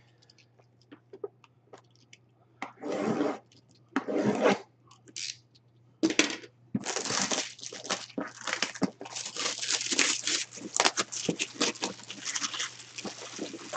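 Packaging being torn and crinkled by hand as a sealed collectible jersey box is opened. A few separate tearing sounds come first, then continuous crackly crinkling and rustling from about seven seconds in.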